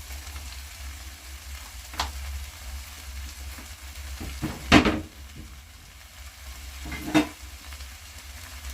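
Chicken and okra frying in oil with a steady sizzle. A cooking utensil knocks against the pot three times, about two, five and seven seconds in; the middle knock is the loudest.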